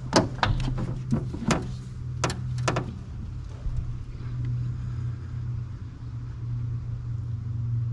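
A few sharp knocks and clicks as the oil bottle and filler cap are handled, then a steady rush of new engine oil being poured into the engine's filler. A constant low hum runs underneath.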